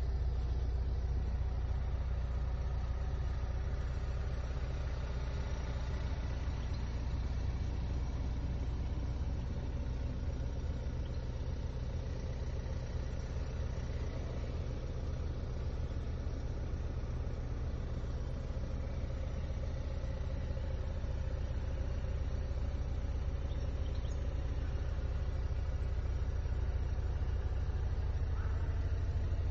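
2017 Hyundai Santa Fe's 2.0-litre four-cylinder R-series diesel engine running, heard from inside the cabin as a steady low rumble.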